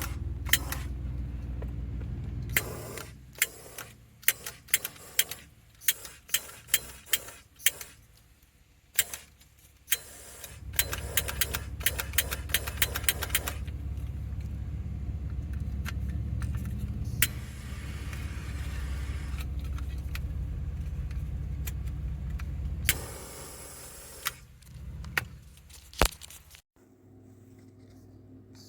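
Many sharp clicks from a hand-held butane torch's trigger and lock button being worked, between stretches of a steady low rumble.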